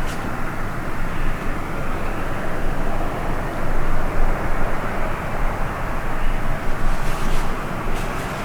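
Steady rushing, rumbling noise, with a few sharp clicks near the end.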